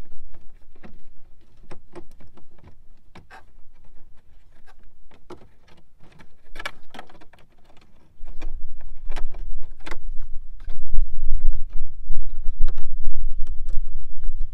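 Scattered small clicks and taps of a screwdriver and fingers on the plastic dash trim of a 1992–95 Honda Civic while the clock's screw is undone. About eight seconds in, a loud low rumble starts and stays under the clicks.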